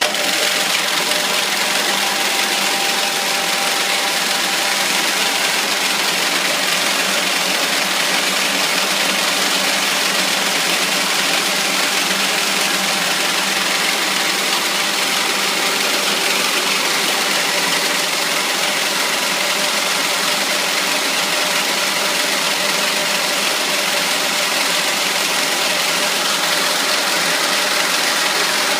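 Six-head braiding machine with seven bobbin carriers per head running: a loud, steady, dense mechanical noise that comes on abruptly at the start and holds evenly throughout.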